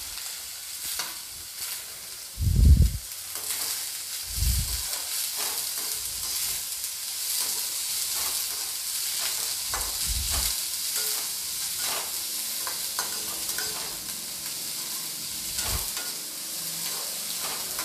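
Chopped vegetables sizzling as they are stir-fried in hot ghee in a kadai on high flame, a steel slotted spoon scraping and tossing them with many short clinks. A few dull thumps stand out, the loudest about two and a half seconds in.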